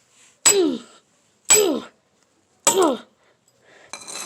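Three short, sharp vocal grunts from a boy, each falling in pitch, about a second apart, then softer rustling near the end.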